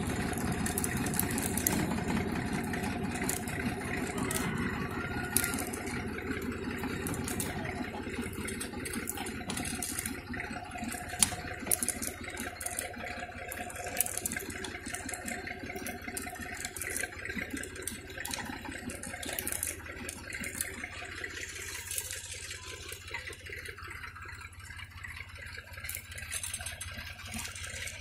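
An engine running steadily, growing quieter over the last several seconds. Over it comes irregular clicking and rattling from the seed drill's chain drive and seed metering mechanism as it turns.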